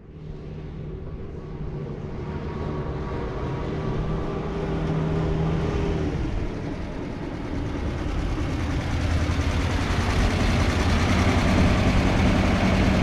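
1947 Ford pickup's flathead V8 running as the truck drives up, growing louder as it nears. Its engine note holds steady, drops about six seconds in, then climbs again.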